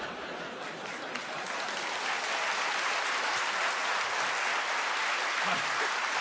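Studio audience applauding steadily, a dense even clapping that builds slightly in the first second or two.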